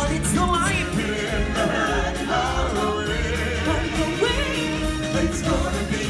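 Stage-show song: group and lead singers, choir-like, over loud amplified backing music, continuous throughout.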